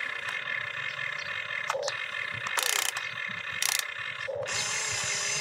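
Toy RC excavator's small electric gear motors whirring as the boom and bucket dig, with three short hisses about a third, a half and two thirds of the way through.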